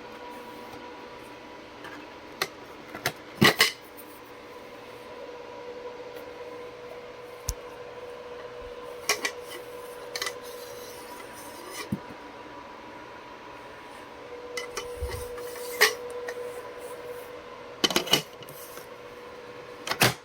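Scattered sharp clicks and knocks, like hard plastic parts of a Hoover Fold Away upright vacuum being handled, over a faint steady hum; the loudest knocks come about three and a half seconds in, near the middle and near the end.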